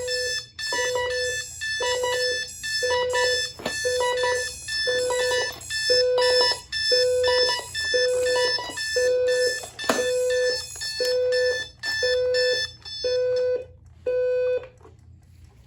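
Electronic alarm clock sounding its alarm: a buzzy beep about half a second long, repeated about once a second, which stops about a second before the end.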